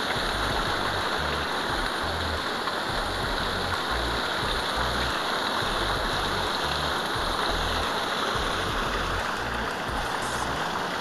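Steady rush of water pouring through a canal sluice, an even hiss with no change in level.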